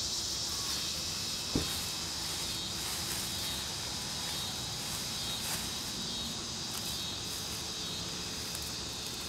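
Steady high-pitched chorus of crickets, with one sharp click about a second and a half in.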